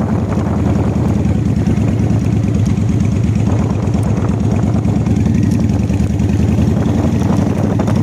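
Honda Shadow's V-twin engine running steadily, at what sounds like idle, with the whining sound it is being recorded for.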